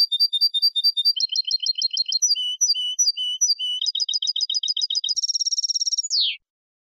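European goldfinch (jilguero) singing a clean Málaga-style 'copia' tutor song: phrases of clear notes repeated at an even pace, changing about every second, then a fast trill and a single falling note before it stops about six seconds in.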